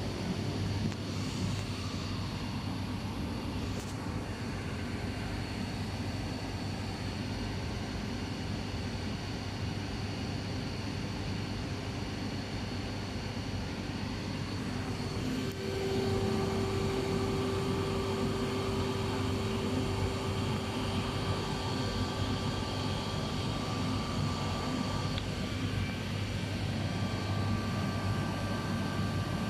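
Hurco VM10U five-axis CNC machining centre running while milling a compressor impeller blade fillet: a steady mechanical drone with several whining tones. About halfway through, a stronger tone comes in and the sound gets a little louder.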